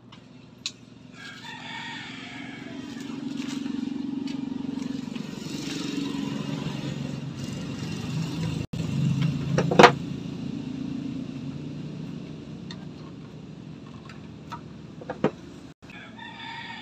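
A rooster crowing about a second in and again near the end, over a passing vehicle whose low running sound swells and fades. A sharp snap about ten seconds in is the loudest sound, with a few light clicks.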